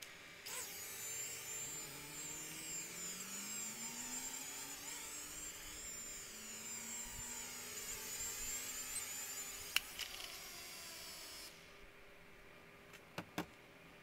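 Toy quadcopter's small motors and propellers buzzing with a high whine as it lifts off and flies, the pitch wavering and drifting as it moves. There is a single sharp click, and the motors cut off suddenly a moment later.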